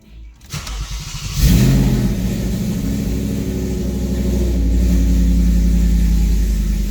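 Audi RS4 engine running on essentially open headers, with no downpipe or turbo in the exhaust path, cranking on the starter for about a second and catching with a loud flare-up. It then settles into a loud, steady, unmuffled idle.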